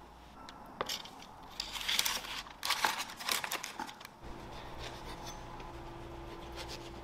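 A sheet of paper crinkling and tearing in a quick run of short rustles over about three seconds, then a faint steady hum.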